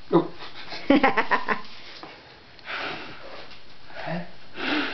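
A young child blowing short, spluttery puffs of breath at birthday-cake candles. A brief voice comes in about a second in.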